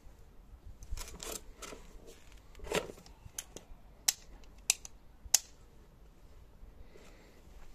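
Handling noise of a Bosch GSC 75-16 electric metal shear being turned over in the hands, with soft knocks and rustling, then three sharp clicks a little over half a second apart as parts of the tool are worked.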